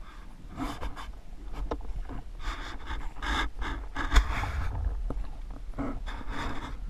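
Underwater water noise picked up by a camera in its housing: a steady low rumble with several bursts of rushing, bubbling hiss and a few sharp knocks.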